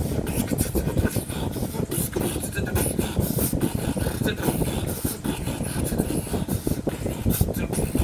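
Close-miked beatboxing: a dense, unbroken stream of deep bass sounds and clicks, with short hissing hi-hat-like sounds over it.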